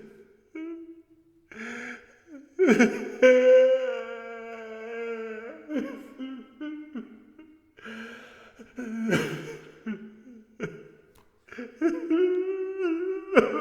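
A man crying: long drawn-out wailing sobs broken by sharp gasping breaths.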